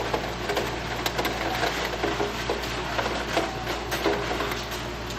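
Hail and heavy rain pelting a window, a dense steady patter with many small sharp ticks of hailstones striking the glass.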